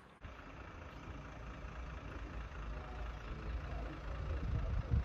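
Outdoor noise: a steady low rumble with a hiss above it that starts suddenly and slowly grows, with wind buffeting the microphone in gusts near the end.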